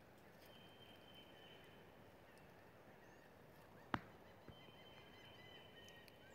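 Near silence: faint outdoor ambience with a thin, steady high note heard twice and a few faint bird chirps, broken by a single sharp click about four seconds in.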